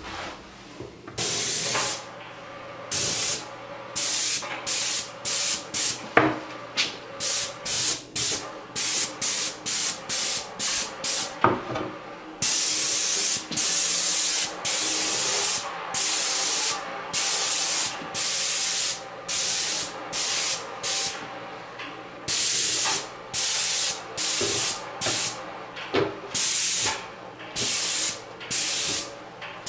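Airless paint spray gun hissing in repeated bursts as the trigger is pulled and released, spraying primer onto cabinet shelving: quick short bursts in the first half, then longer passes of about a second each. Two sharp clicks stand out, about six and eleven seconds in.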